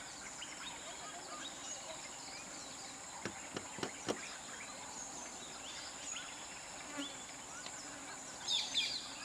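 Steady high insect drone with many short bird chirps over it. A few sharp knocks come about three to four seconds in, and a louder burst of high chirping comes near the end.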